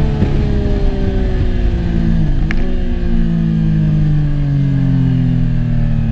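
Yamaha FZ-09 motorcycle's inline-three engine with its revs falling slowly and steadily, with a brief dip and pick-up about two seconds in.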